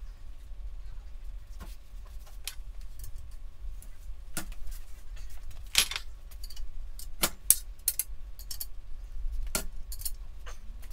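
Scattered metallic clinks and knocks as a VW Beetle front axle beam and hand tools are handled on a steel table. The loudest knock is about six seconds in, over a steady low hum.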